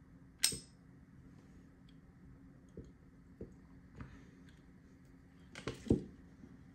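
Small clicks and clinks of a diecast 1:64 Nissan Skyline GT-R R32 model car being handled, set down on a stone floor and pushed up against a toy flatbed truck's ramp. There is a sharp click about half a second in, a few light taps, and a quick cluster of clinks near the end.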